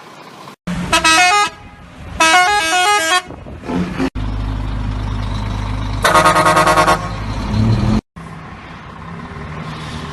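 Musical vehicle horns: a quick tune of stepping notes played twice, then a heavy vehicle's engine running with a loud chord horn blast about six seconds in.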